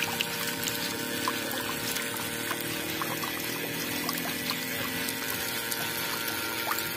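Water from a toy model water pump pouring and splashing steadily onto a small concrete channel, with a faint steady hum from the pump.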